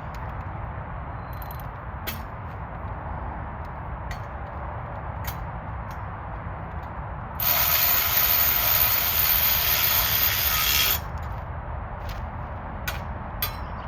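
Scattered light clicks and knocks of bench parts being handled and fitted, broken by a loud, steady hiss of about three and a half seconds that starts and stops abruptly.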